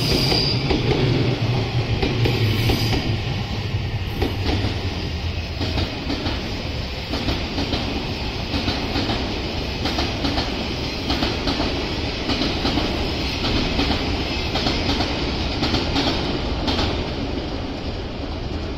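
Odakyu Line electric commuter trains running past on the multi-track line. A close train's low rumble is strongest in the first few seconds and eases off. After that, wheels click repeatedly over rail joints as trains run by on the farther tracks.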